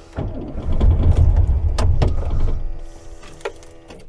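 A 1915cc air-cooled flat-four engine in a 1974 VW Super Beetle, started again after a stall: it runs loud for about two seconds, then drops to a quieter idle. The owner thinks the ignition timing is out.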